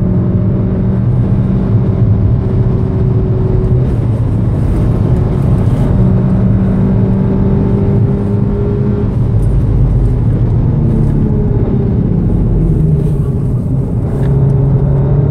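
2014 VW Golf VII R's turbocharged 2.0-litre four-cylinder pulling at full throttle in fourth gear, its note rising slowly toward about 6000 rpm, heard inside the cabin along with road noise. About ten seconds in the note falls away as the car slows, and near the end the engine pulls again lower in third gear.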